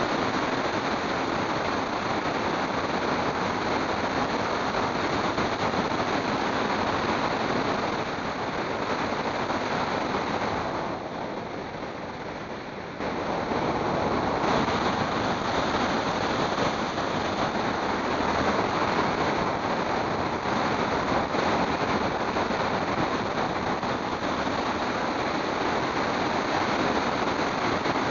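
Steady rushing wind noise on the microphone of a camera riding on a moving vehicle, mixed with road and tyre noise. About eleven seconds in it drops for a couple of seconds, then comes back at the same level.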